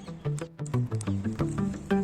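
Background music: a melody of quick, separate notes, several a second, over a lower line of notes.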